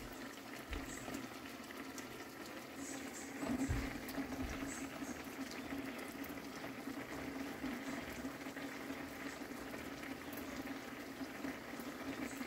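Steady bubbling hiss of a pot boiling on the gas stove, with a soft thump about three and a half seconds in.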